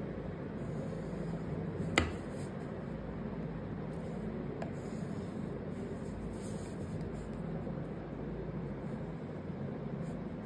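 Steady low room hum, with a sharp tap about two seconds in and a fainter tap a few seconds later as a metal ruler and pencil are handled on a card on a wooden tabletop.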